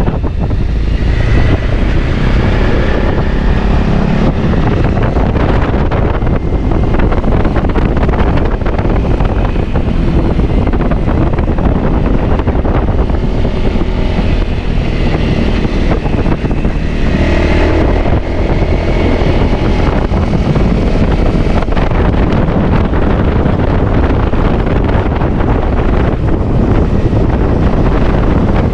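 Trail motorcycle running steadily while being ridden, under heavy wind noise on the microphone.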